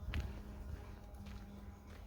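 Footsteps on a forest trail, two steps about a second apart, over a faint steady low hum.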